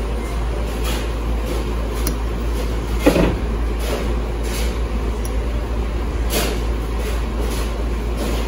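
Steady low hum of a dining room, with a few light clicks of a fork and knife on a plate and one louder knock about three seconds in.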